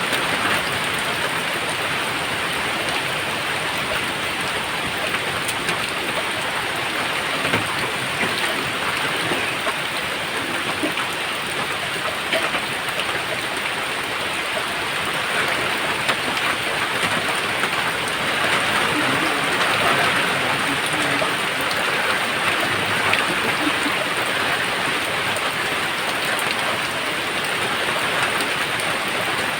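Steady rain falling: an even hiss with scattered drop ticks, swelling slightly about two-thirds of the way through.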